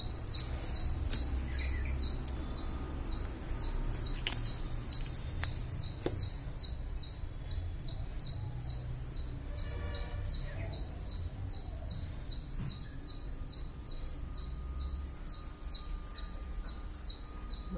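High-pitched chirping repeating steadily about twice a second, over a low rumble, with a short animal call about ten seconds in.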